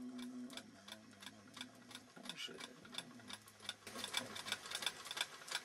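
Fast, faint clicking, several clicks a second and getting denser toward the end. A man's voice, chanting on one held note, fades out about half a second in.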